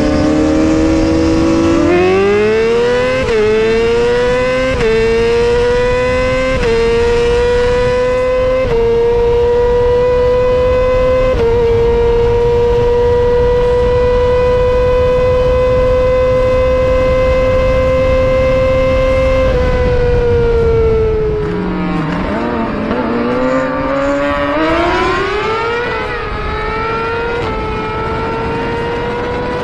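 Sport motorcycle engine accelerating hard through the gears: the pitch climbs and drops back at each of about five upshifts, then holds high and steady at speed. About 20 seconds in it falls away as the bike slows, then revs up again near the end.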